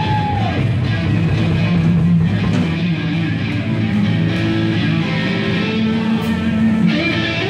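Live electric blues band playing a slow blues: a Stratocaster-style electric guitar plays sustained lead notes over drums and bass guitar.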